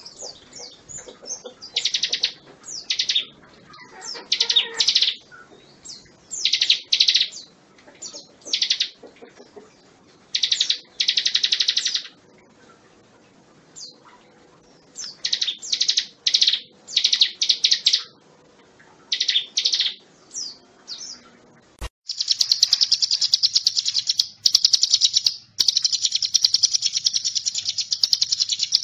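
Ciblek gunung, a mountain prinia, singing: short, rapid, high trilled phrases repeated with pauses between them. About two-thirds through there is a click, and then the bird chatters in an almost unbroken fast trill.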